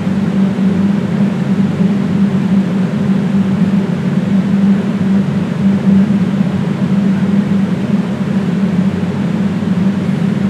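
A loud, steady low hum over a hiss, unchanging throughout.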